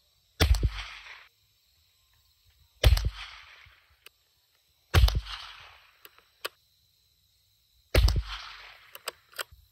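Rossi RB22 bolt-action .22 LR rifle firing CCI Mini Mag rounds: four sharp shots about two to three seconds apart, each trailing off in a short echo, with a few faint clicks between shots.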